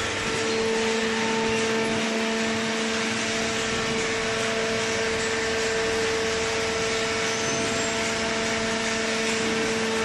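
Hydraulic pump and motor of a waste cardboard baler running: a steady machine hum with a clear, unchanging tone over a noisy wash.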